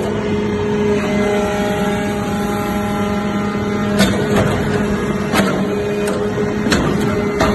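Metal shavings baler running, a steady machine hum with sharp clanks every second or so.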